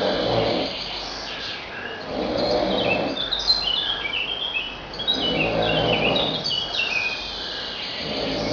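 A man snoring heavily, a drawn-out snore breath every two to three seconds. A songbird sings with quick runs of falling chirps, mainly about three to seven seconds in.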